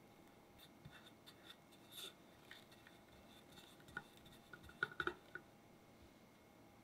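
Faint scraping of a metal spatula spreading and smoothing whipped mascarpone cream over a cake, with scattered light ticks and a quick cluster of sharper clicks about five seconds in.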